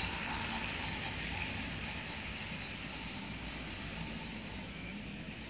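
Battery-powered toy train running past on plastic track, its small motor and wheels loudest in the first second and a half, then quieter and steady as the cars go by.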